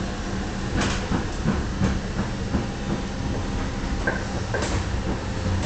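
Metre-gauge tram running along the track with a steady low rumble, the wheels clicking over rail joints every half second or so. Two short high squeals, typical of wheel flanges, come about four seconds in.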